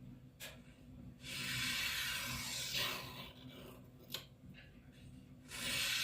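Long rasping strokes of a steel blade being filed or abraded by hand, each lasting a second or more, with a short sharp click about four seconds in.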